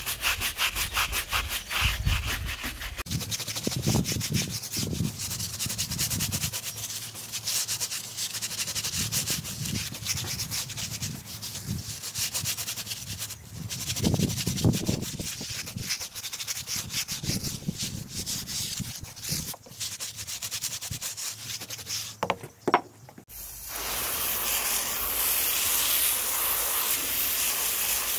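Bristle brush scrubbing a wet, soapy rubber tire sidewall in rapid back-and-forth strokes. A couple of sharp knocks come near the end, then a hose nozzle sprays water steadily onto the tire to rinse it.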